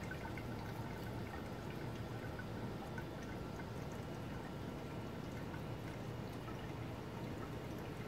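Solar-powered bird bath fountain, water splashing and trickling steadily with fine dripping.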